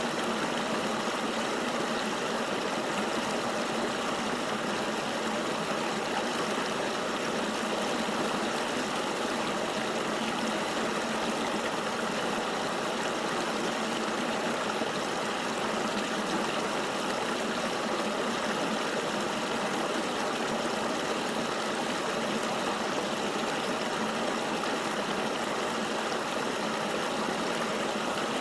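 River water flowing steadily, an even hiss-like wash with no splashes or breaks and little deep rumble.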